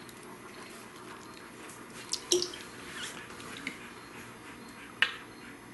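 A few light clicks and taps as a plastic barbecue sauce bottle is handled and its cap worked open, over quiet room tone; the sharpest click comes about five seconds in.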